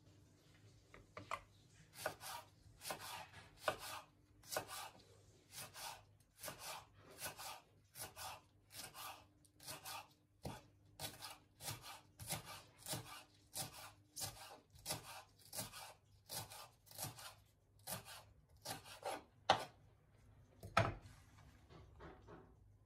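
Kitchen knife slicing a leek into rings on a wooden cutting board: a crisp cut through the stalk and onto the board about twice a second. A couple of heavier knocks come near the end.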